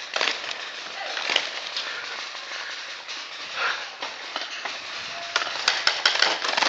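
Footsteps crunching on loose gravel as a player runs, with a quick run of sharp cracks near the end.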